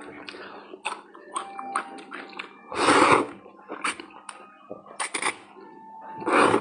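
Thick wheat noodles slurped into the mouth in two loud, noisy sucking bursts, one about three seconds in and one near the end, with short wet clicks and smacks of chewing between them.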